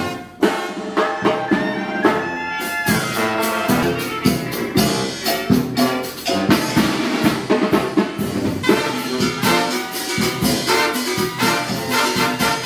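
Mexican banda brass band playing live: trumpets, clarinets and a tuba over a drum kit keeping a steady beat. The music dips briefly just after the start, then runs on.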